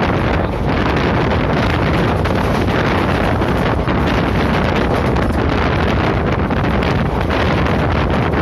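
Wind buffeting the microphone of a phone held out of a fast-moving passenger train, a steady, dense rush with the train's running rumble beneath it.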